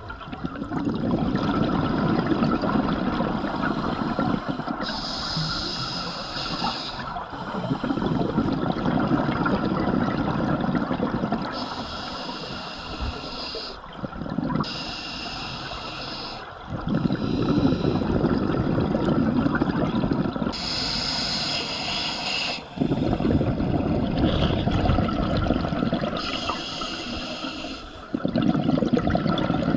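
Scuba regulator breathing underwater: about five slow breaths, each a hiss of air drawn through the demand valve followed by the low bubbling rumble of the exhaled bubbles.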